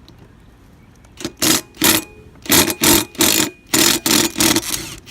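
Cordless impact driver hammering at the mower blade's retaining bolt in a run of eight or nine short bursts, loosening it to remove the dull blade. The bursts start about a second in.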